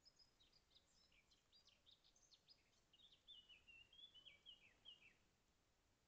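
Faint songbird song: a quick string of short, high notes, then a run of clearer whistled notes that step downward, ending about five seconds in.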